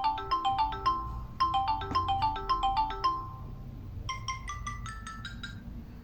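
Samsung Galaxy Xcover2 ringtone playing: a short melodic phrase of quick, evenly spaced notes, heard twice, then a different, higher phrase begins about four seconds in.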